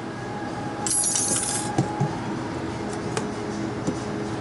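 A steady mechanical hum from refrigeration service equipment. About a second in comes a short, sharp hiss of under a second, and a few light metal clinks follow.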